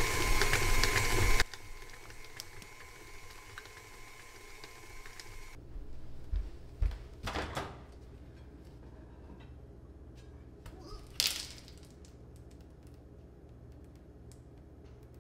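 An electric mixer beating sugar runs loudly, then is switched off about a second and a half in. A fainter hum carries on until about five and a half seconds. Then come a few scattered knocks and clicks, the sharpest near eleven seconds.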